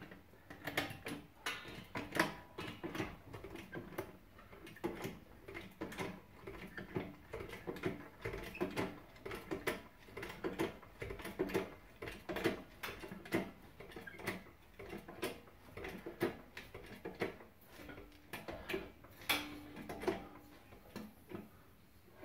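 Hand ratchet clicking in quick, uneven strokes while the front strut's mounting bolts are tightened down.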